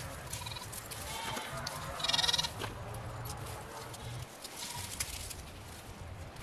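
A goat bleating, one loud bleat about two seconds in with fainter calls before it, over the rustle of dry bean vines being handled.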